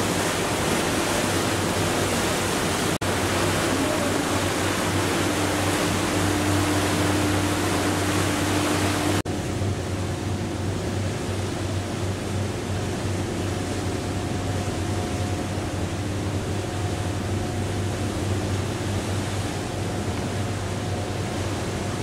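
Steady rushing noise of wind and the ship's machinery with a low hum beneath. It cuts out for an instant twice, about 3 and 9 seconds in. After the second cut the rushing is duller and a faint steady tone sits above it.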